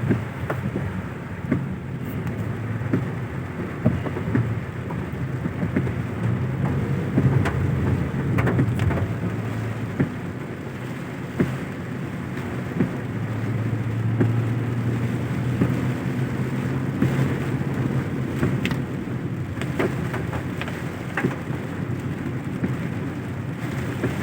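Heavy rain falling on a car that is driving, with many sharp drop ticks. Underneath is the steady low hum of the vehicle.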